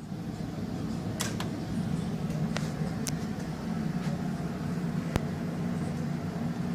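A steady low hum with a few scattered light clicks and taps.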